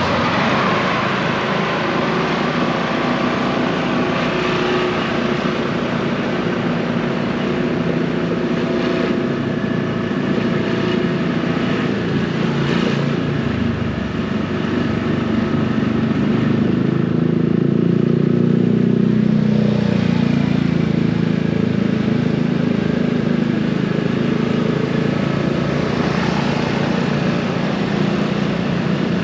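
Motorcycle engine running steadily as the bike is ridden, over a constant rush of road noise; it swells a little around the middle.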